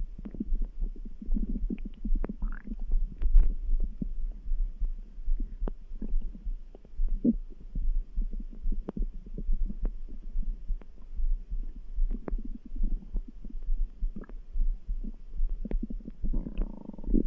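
Stomach grumbling and gurgling, with a heartbeat pulsing steadily underneath; a louder, longer gurgle comes near the end.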